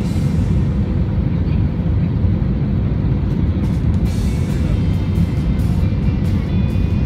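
Steady low rumble of engine and airflow noise inside an Airbus A320's cabin on approach, with background music and a light regular beat over it.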